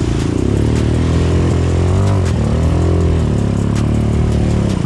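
Eagle Motorsport 250cc quad bike engine running hard through a flooded mud track, its pitch dipping and then climbing again about two to three seconds in, with water splashing around the wheels.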